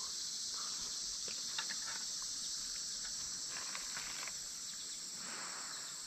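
Steady, high-pitched chorus of insects, with a few faint clicks and rustles.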